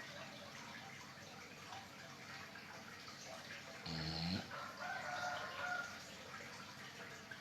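Snoring: one short, loud snorting snore about four seconds in that rises in pitch, followed by a thin whistling tone for about a second, over a steady soft hiss.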